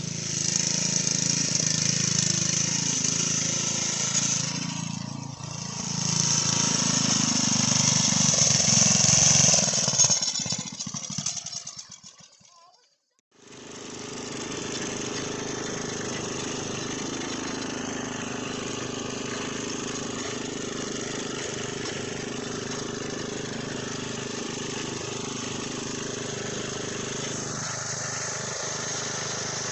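A loud rushing noise that swells twice and fades away, then, after a moment of silence, an 8 hp Briggs & Stratton single-cylinder engine running steadily at an even pace under the go-kart's rider.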